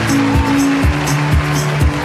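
Music with a steady beat, about two drum hits a second, over held low notes.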